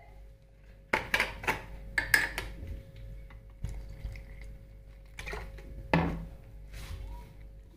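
A stainless steel mixing bowl knocking and clinking several times as it is handled, while water is poured from a plastic bottle onto flour in it.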